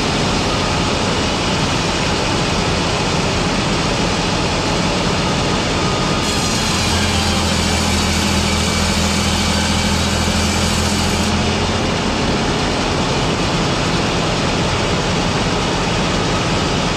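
Production-line machinery running steadily: a loud, even mechanical noise with a low hum that swells for a few seconds mid-way.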